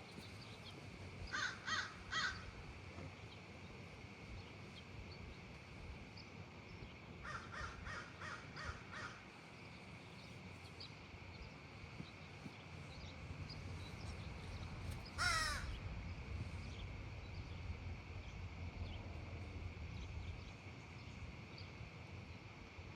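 Crow cawing: three harsh caws about a second in, then a quicker run of about six caws near eight seconds in. About fifteen seconds in comes the loudest sound, a single call sweeping steeply down in pitch.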